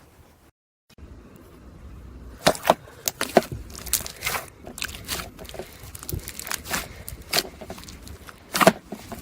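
Slime being poked and squeezed, giving irregular sharp clicks and pops a few times a second that start about two and a half seconds in.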